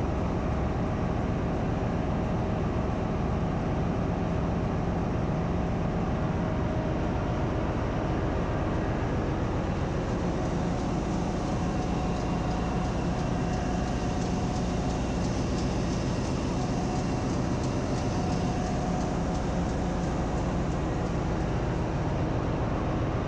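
Steady machinery noise of the electric turning gear driving its worm against the flywheel teeth, slowly turning the MAN B&W 6S60MC-C six-cylinder two-stroke crosshead main engine, over the constant hum of the engine room's running diesel generators.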